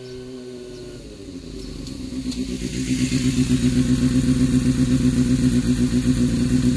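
Kawasaki Balius 250 inline-four engine breathing through an aftermarket muffler meant to sound lower than the stock one. The sound grows louder over a couple of seconds, then holds steady and loud with an even pulsing beat.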